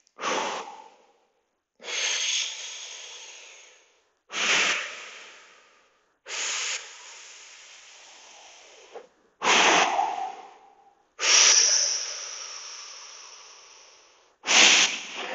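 A man's loud, forceful breathing as he holds a strenuous yoga pose. There are about seven sharp breaths, two seconds or so apart, several of them trailing off slowly.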